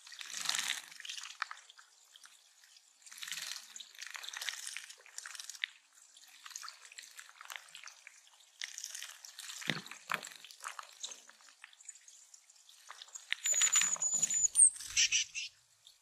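Small songbirds (a Tufted Titmouse and Tennessee Warblers) bathing in shallow pond water: spells of splashing from fluttering wings, each a second or two long, about five times, with short quiet gaps. A brief high thin note near the end.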